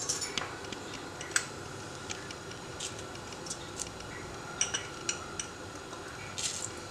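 A spoon clinking and clicking lightly against a metal cooking pot at irregular moments while salt is stirred into the spiced water.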